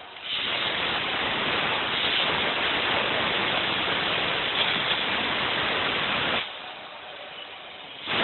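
Compressed air hissing in a long steady blast that cuts off abruptly about six and a half seconds in, then starts again just before the end.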